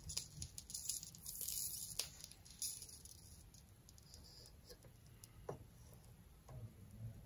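Faint, scattered small clicks and taps from soldering work: solder wire and soldering-iron tip touching the corrugated copper outer conductor of Heliax hard-line coax. The clicks are densest in the first few seconds, with a few more later on.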